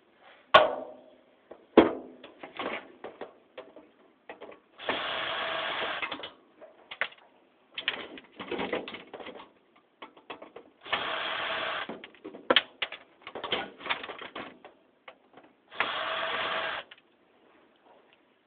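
A power drill or driver runs in three bursts of about a second each, spinning out the fan's long steel bolts. Between the bursts come clicks and clinks of metal parts being handled.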